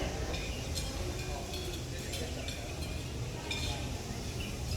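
Restaurant ambience: a steady low rumble under faint murmured voices, with a few short light clinks scattered through.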